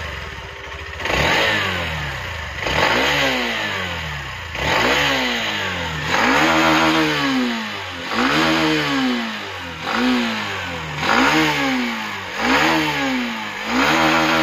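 Hero Xtreme 160R motorcycle's single-cylinder engine being revved in neutral with throttle blips. The pitch climbs sharply and drops back toward idle about nine times, roughly once every second and a half.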